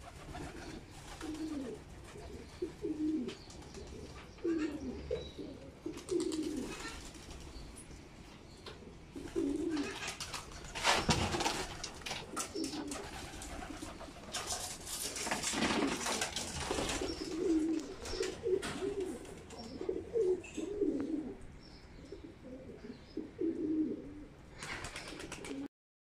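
Feral pigeons cooing repeatedly, overlapping low coos, with a few louder rustling bursts about halfway through. The sound cuts off just before the end.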